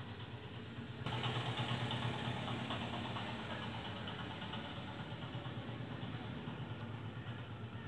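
Steady engine-like mechanical rumble of background noise. It jumps louder about a second in, then slowly eases off.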